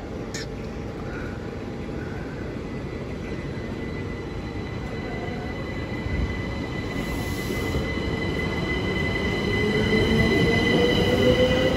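Southeastern Class 375 electric multiple unit moving through the station, growing louder. Steady high-pitched squealing tones run throughout, and a whine rises in pitch over the last few seconds.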